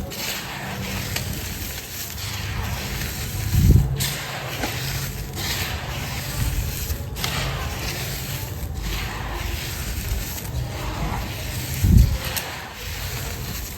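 Dry sand cement crumbling, a continuous gritty breaking texture, with two heavier thumps about four seconds in and again near the end.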